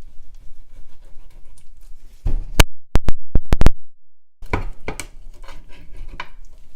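Kitchen knife chopping through roasted chicken and bone on a cutting board: light scraping and cutting, then a quick run of about six very loud, sharp chops about two and a half seconds in, followed by a string of lighter knocks of the blade on the board.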